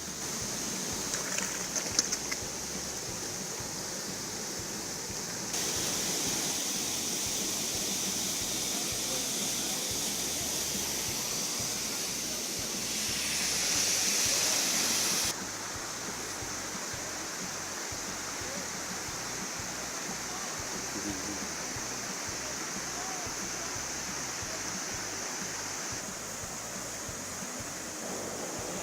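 Steady rushing of a waterfall, a continuous hiss of falling water. Its loudness jumps abruptly a few times, and there are a few sharp clicks about two seconds in.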